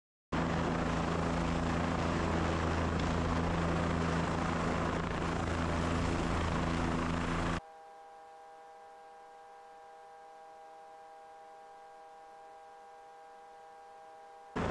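Helicopter engine and rotor running steadily, cutting in abruptly. About halfway through it gives way suddenly to a much quieter, steady hum of several even tones, and the helicopter sound comes back right at the end.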